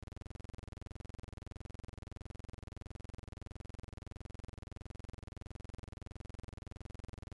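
A steady, unchanging buzz made of many even pulses a second, strongest in the bass.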